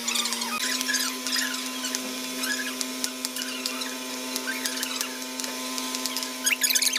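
Knife slicing tomatoes on a plastic cutting board, making many light, crisp taps. Under it runs a steady machine hum.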